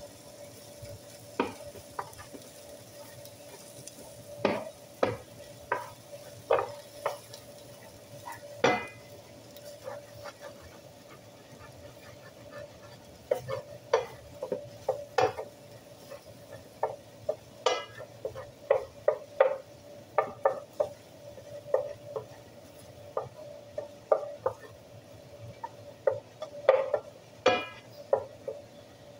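Wooden spoon scraping and knocking against a nonstick skillet as eggs are scrambled, in irregular strokes that come thicker in the second half. Underneath are a light sizzle of the frying eggs and a steady hum.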